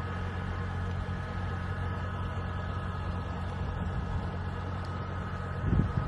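Steady low hum like a distant motor, with a faint steady high whine over it, and two short low bumps near the end.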